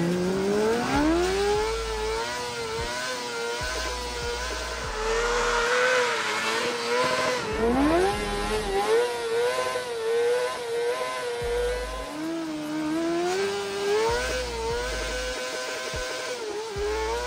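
Honda CBR600RR inline-four motorcycle engine of a rallycross kart, heard from the cockpit while it is driven hard: the high revs climb and drop back again and again as the driver accelerates, shifts and lifts.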